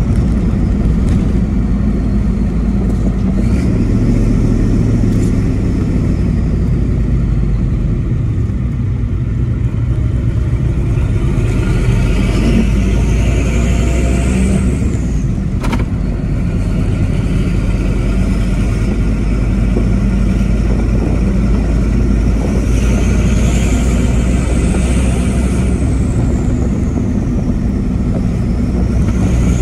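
Ford 7.3 L IDI turbo-diesel V8 with a straight-pipe exhaust, heard from inside the cab, pulling through the gears of its five-speed manual. A high turbo whistle climbs as the engine pulls and falls away at the shifts, several times over. There is a single sharp click about halfway through.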